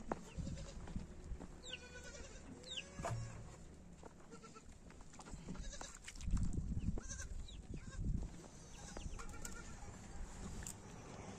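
Goats bleating on and off, several short calls that bend in pitch.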